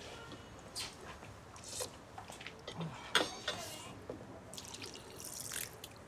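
Quiet, scattered clicks and taps of chopsticks and tableware against bowls while people eat noodles, with a brief soft hiss near the end.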